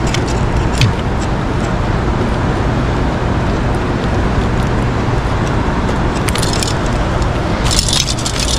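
Steady low rumble under a constant hiss, with a single click about a second in and a few short, high rattling scrapes near the end.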